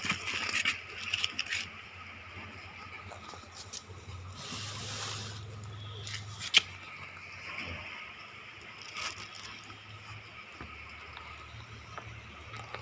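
Packaging and parts being handled by hand: rustling and scraping, with a sharp click about six and a half seconds in and a longer hiss of sliding material a little before it.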